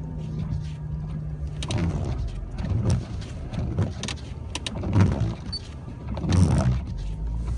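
Jeep Wrangler running, heard from inside the cabin: a steady engine hum at first, then a run of irregular knocks, thumps and rattles from the vehicle, the loudest about five seconds in and again a second and a half later.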